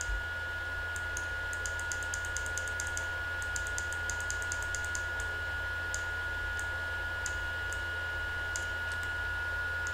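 Computer mouse button clicking, in quick runs and then single clicks spaced out, as the left button is pressed over and over for sculpting strokes. A steady low hum runs underneath.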